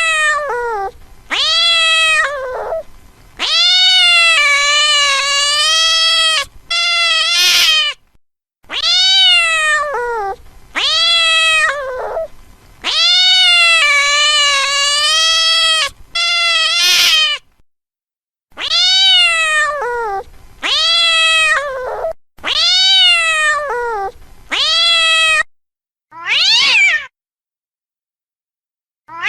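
A domestic cat meowing over and over, about a dozen calls with short silent gaps between them; each meow rises and then falls in pitch, some brief and some drawn out for two or three seconds.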